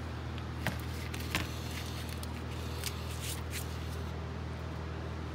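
A steady low hum, with two light clicks in the first second and a half as tools are handled.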